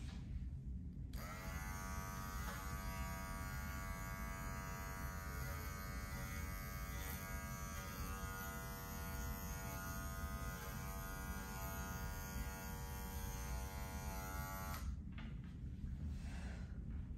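Handheld electric dog clipper buzzing steadily as it clips a dog's coat. It switches on about a second in and stops about two seconds before the end.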